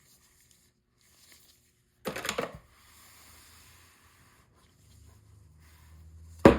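Packaging being handled: a brief crinkling rustle about two seconds in, then a sharp knock near the end as something is set down.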